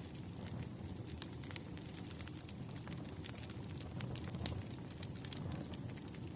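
Firewood burning: a steady low rumble of flames with many sharp crackles and pops from the wood, and one louder pop about four and a half seconds in.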